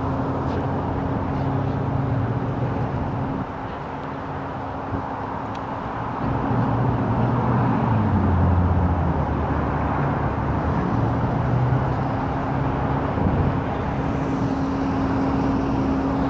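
Tow truck's engine idling with a steady hum, growing louder about six seconds in.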